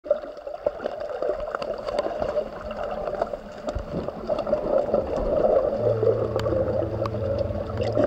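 Muffled underwater noise picked up through a camera's waterproof housing: a steady wash of water sound with scattered sharp clicks. About six seconds in, a low sustained music note fades in beneath it.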